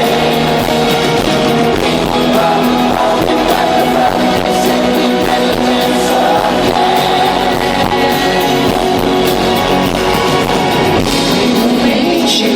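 Live pop-rock band playing with singing, steady and loud.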